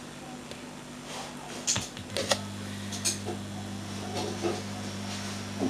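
Steady hum of a running desktop computer that shifts to a lower, stronger pitch about two seconds in, with a few sharp clicks on top.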